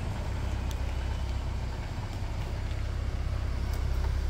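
Tractor-semitrailer's diesel engine running with a low, steady drone as the truck reverses slowly through a tight turn.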